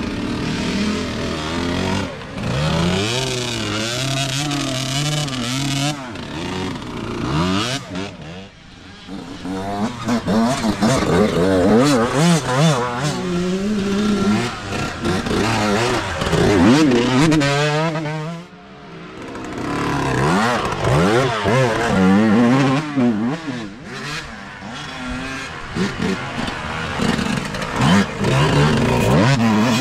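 Youth dirt bike engines revving up and down in repeated swells as riders work through deep mud, briefly fading twice; one bike passes close near the end.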